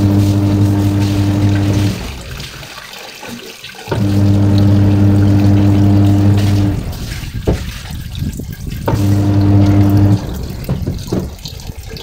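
Washing machine's motor humming in three on-off runs of two to three seconds each, with water running.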